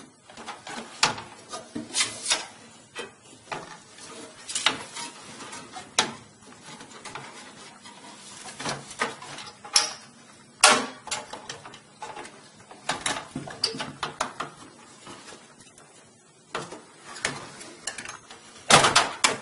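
Irregular light clicks, taps and scrapes of a motherboard being shifted and lined up on the mounting posts inside a metal desktop computer case, with a louder cluster of clatter near the end.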